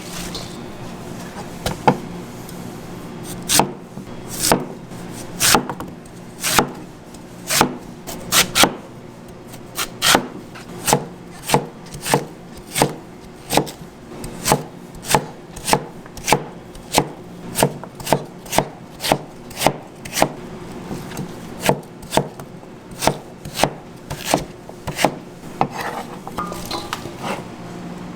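Knife chopping food on a cutting board: sharp strokes, a few scattered at first, then settling into a steady run of about two a second before slowing near the end.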